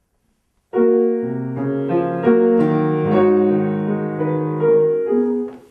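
Grand piano played slowly, sustained chords of several held notes changing about every half second; it comes in about a second in and fades out near the end.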